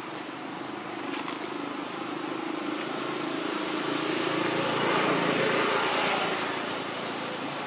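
A motor vehicle passing by: engine and tyre noise that builds to a peak about five seconds in, then fades away.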